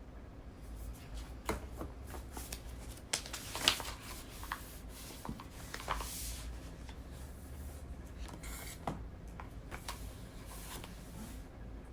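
Paper rustling and scattered small clicks and taps from handling papers and stationery at a study desk, with one sharper click about three and a half seconds in.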